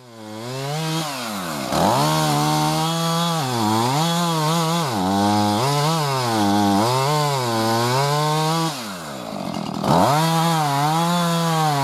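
Chainsaw engine cutting firewood, its pitch swinging up and down about once a second as it revs and drops in the cut. It winds up at the start and falls away briefly near the end before picking up again.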